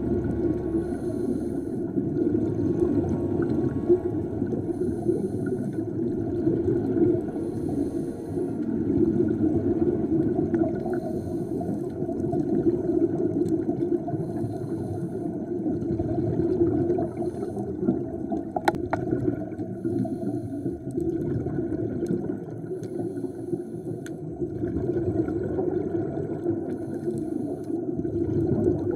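Underwater ambience through a diving camera's housing: a dense, muffled rush and gurgle of water, with scuba divers' exhaled bubbles. One or two sharp ticks come about two-thirds of the way through.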